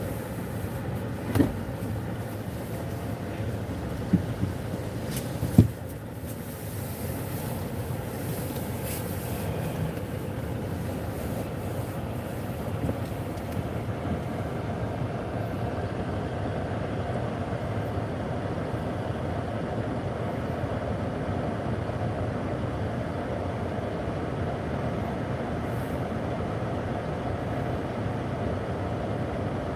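Steady rumble of a car driving slowly on a snow-covered road, tyre and engine noise heard from inside the cabin. Three short sharp knocks come in the first six seconds.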